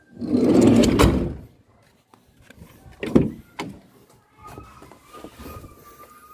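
A van door sliding along its track and shutting with a solid thud about a second in, followed by two sharp knocks; a faint steady tone comes in later.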